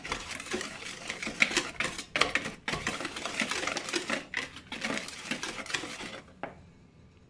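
Wire whisk mixing dry flour, sugar and baking powder in a glass bowl: rapid scratching and clinking of the wires against the glass, stopping about six seconds in, followed by one light click.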